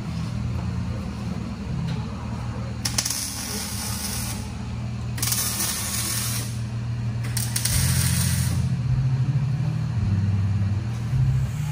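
A hand-held tool works on the car's exhaust from underneath. It hisses in three bursts of about a second and a half each, a few seconds in, over a steady low drone that steps up and down in pitch.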